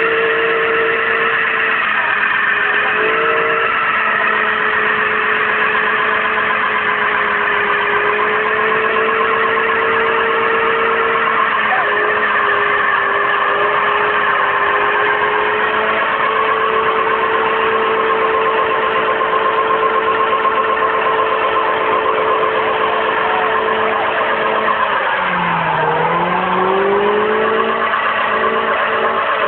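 Car engine running at steady, held revs, its pitch dipping once near the end and climbing back up.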